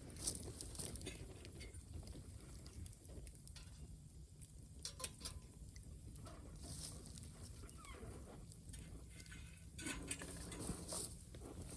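Bonfire crackling: scattered sharp pops and ticks over a low steady rumble, the loudest pop about a quarter second in.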